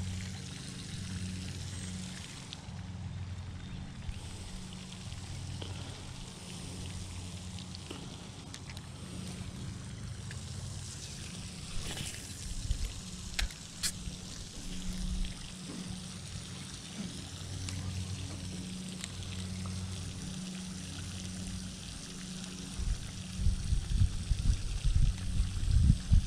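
Water trickling and lapping, with a low hum that comes and goes and a few sharp clicks about twelve to fourteen seconds in. Gusts of wind buffet the microphone near the end.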